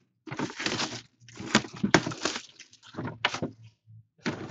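Plastic wrapping crinkling and crackling on a cardboard box as it is handled and unwrapped, in irregular bursts, over a faint low electrical hum.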